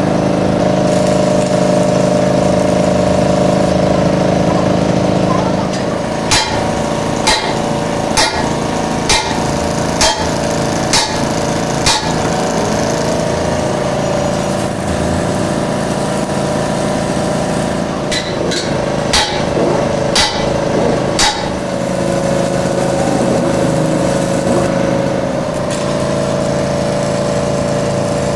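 Metal struck with a hammer about once a second, in a run of about seven blows and then a shorter run of about five, over the steady hum of a running workshop machine.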